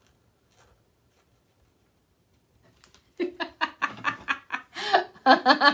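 Near silence for about three seconds, then a woman laughing in a quick run of short bursts.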